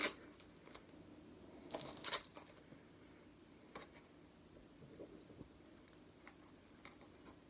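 A package being cut and worked open by hand: faint scratching and rustling, with two short louder scraping rasps about two seconds in and scattered small clicks.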